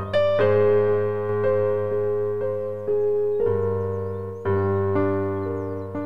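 Slow, gentle background music of keyboard chords. A new chord is struck about once a second and rings on, fading until the next one.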